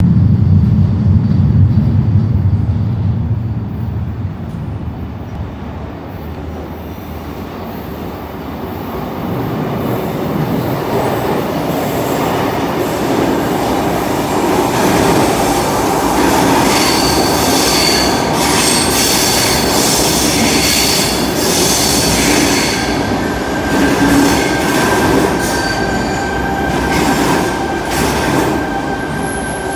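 Sydney Trains Tangara double-deck electric train arriving in an underground station. A low rumble builds from the tunnel at first, then the cars run past along the platform with wheel clatter and thin, high wheel squeals that come and go through the second half.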